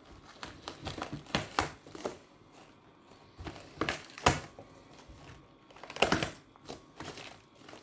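Parcel packaging being opened by hand, plastic wrapping crinkling and tearing in a series of irregular crackles and rustles.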